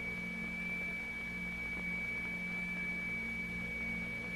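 A single steady, high-pitched pure test tone, held without change, of the kind used to set the material vibrating in a sound-figure demonstration. It sits over a low hum and light hiss from an old film soundtrack.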